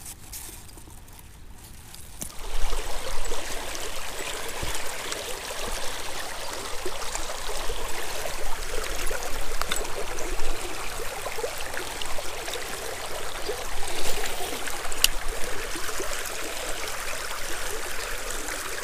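A shallow trout stream running over a rocky riffle: a steady wash of moving water that comes in about two seconds in, with a few faint clicks over it.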